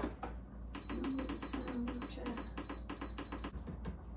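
Electric pressure cooker's control panel beeping: a quick run of short, high beeps, about five a second, lasting nearly three seconds, as the cooking time is set. A television plays faint voice and music underneath.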